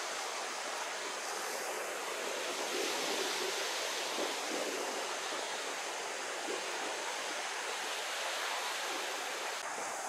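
Sea waves washing onto the beach: a steady rushing surf noise.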